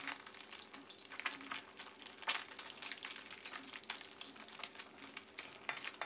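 Flaked steamed short mackerel deep-frying in hot oil in a wok: a continuous high sizzle crowded with quick crackles and pops as the fish fries toward golden and crisp.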